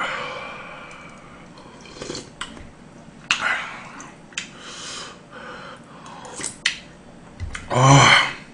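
A man slurping hot beef-bone soup (gomtang) off a metal spoon, with chewing and the spoon clicking against the earthenware bowl. A second loud slurp comes about three seconds in, and near the end a short, loud, voiced sound from him.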